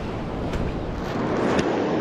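Ocean surf washing against a rock ledge, with wind buffeting the microphone.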